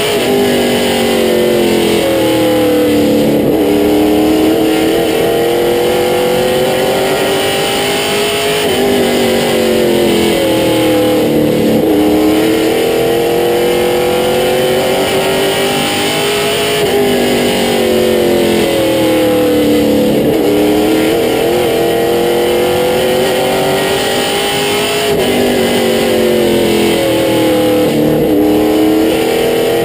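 Limited Late Model stock car's V8 engine heard from inside the cockpit at racing speed. Its pitch climbs steadily along each straightaway, then drops as the driver lifts into the turns, repeating about every eight seconds, over a steady rush of wind and road noise.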